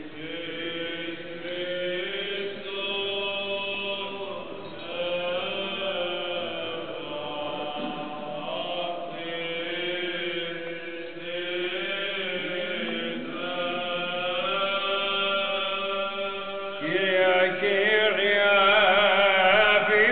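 Voices chanting a church liturgy, holding long, drawn-out notes together. The chant grows louder about three-quarters of the way through.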